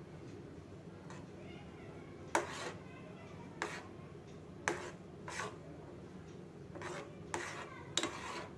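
A steel spoon clinking against a steel pan as Maggi noodles are stirred in their boiling cooking water: about five sharp clinks, the first a little over two seconds in, over a steady low hum.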